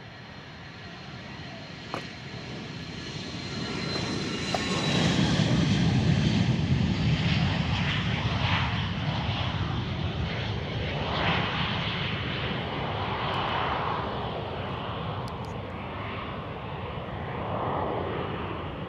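Hawker 800-series business jet taking off and climbing away, its two rear-mounted turbofans building to their loudest about five to seven seconds in as it passes, then slowly fading. A high whine sits over the engine noise at first and fades out about four seconds in.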